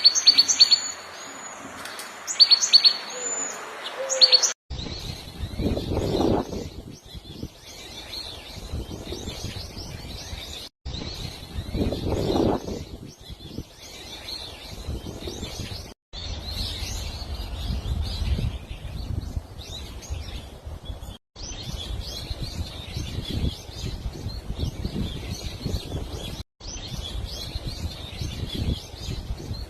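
Small birds chirping and calling with many short, high chirps, in a run of separate short recordings joined about every five seconds. A low rumble sits under the chirps after the first cut.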